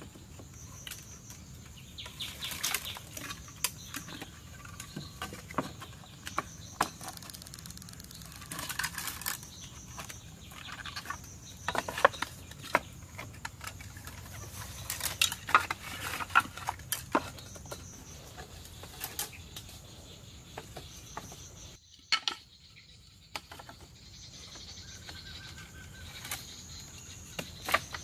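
Irregular light knocks and taps of bamboo and sticks being handled and fitted into a wall, over a steady high drone of forest insects.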